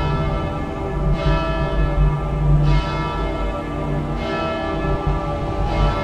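A bell tolling about every second and a half, four strikes in all, each ringing on and fading over a low steady drone.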